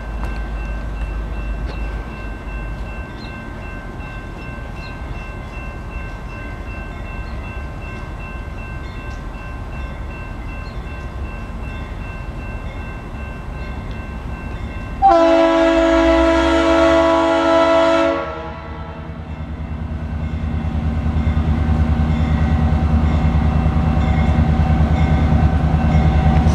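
Diesel locomotive's air horn sounding one loud blast of about three seconds, some fifteen seconds in, over the low rumble of the train. After the horn the rumble grows steadily louder as the locomotive draws nearer.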